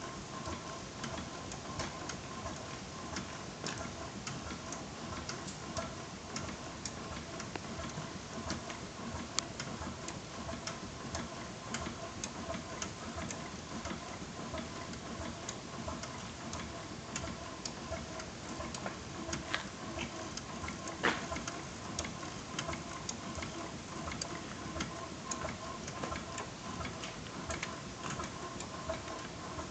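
4-inch scale Burrell double crank compound steam road locomotive ticking over with its motion running, giving a steady, even beat of light mechanical clicks over a faint steady hum. One sharper click stands out about two-thirds of the way through.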